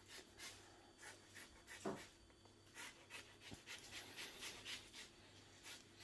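Faint, irregular scraping strokes of a Microplane rasp zester drawn across orange peel, grating off the zest.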